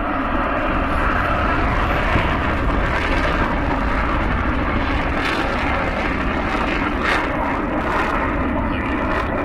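Aircraft engine noise, loud and steady throughout, as a plane flies over.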